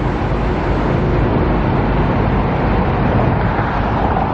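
Steady vehicle noise: a constant rumble with an even hiss and no distinct events.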